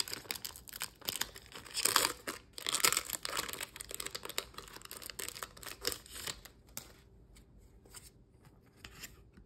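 Foil wrapper of a Pokémon booster pack crinkling and tearing as it is pulled open, loudest about two and three seconds in. Softer rustling and small clicks follow as the cards are slid out of the wrapper and handled.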